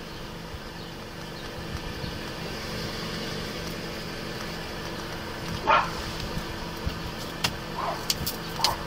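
Steady low hum of a Toyota SUV's engine running at idle, with a short sharp sound a little before six seconds in and a few light clicks near the end.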